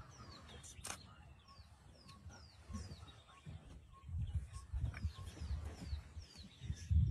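A bird calling a steady series of short, high, down-slurred whistles, roughly two a second. A low rumble grows louder from about halfway through.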